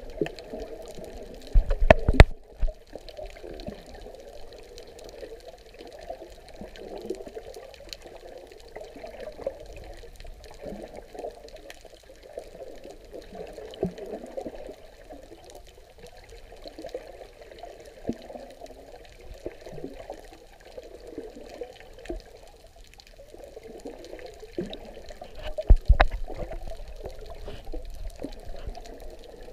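Muffled water sloshing and swishing heard through an underwater camera. Two loud knocks break it, about two seconds in and a few seconds before the end.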